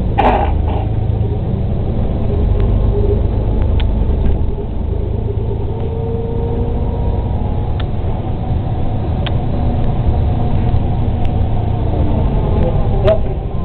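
City bus heard from inside the passenger cabin while driving: a steady low engine and road rumble, with a few short clicks from the bus's rattling fittings.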